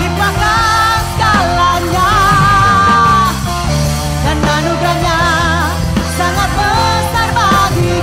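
Live worship band playing, with a woman singing held, wavering notes over electric guitar and bass.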